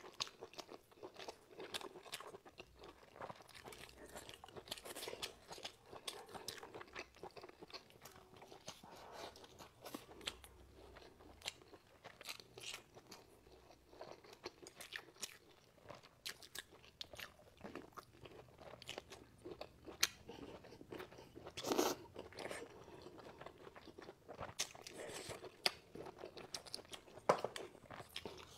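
Close-miked mouth sounds of a person chewing and crunching food: a steady run of small wet crunches and smacks, with one louder crunch about three-quarters of the way through.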